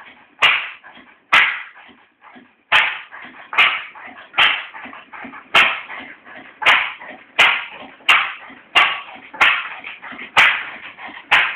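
1928 Massey-Harris stationary engine firing in single sharp bangs, irregularly spaced at roughly one a second. It is running a little bit strange.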